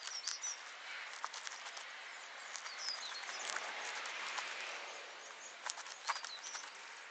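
White shaving-foam slime being kneaded by hand, crackling and squishing with many small crisp pops as air pockets in the foam burst. A few brief bird chirps sound in the background.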